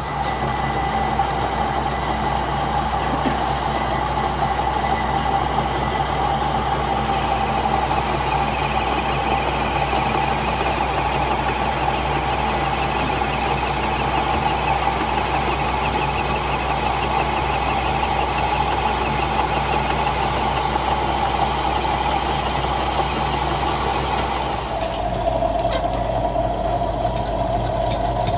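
Metal lathe running, its cutting tool turning down a metal workpiece: a steady machine hum with a whine and a hiss of cutting. Near the end the whine drops a little in pitch and the hiss thins.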